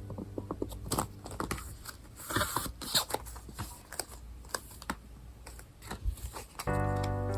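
Irregular small clicks, taps and crinkles of hands handling and unwrapping items in plastic and paper packaging. Background music comes in near the end.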